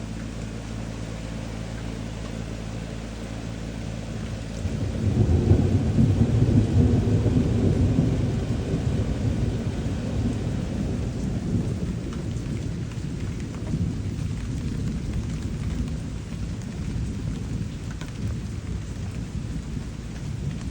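Steady rain falling, with a low steady hum at first. About five seconds in, a long low rumble of thunder swells and then fades slowly over several seconds while the rain continues.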